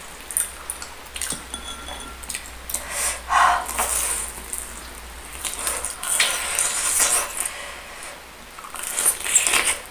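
Close-miked eating of cireng, fried tapioca dumplings stuffed with shredded chicken: the fried shell crackles as it is pulled apart and bitten, then chewed, in several spells of crackling with sharp clicks between.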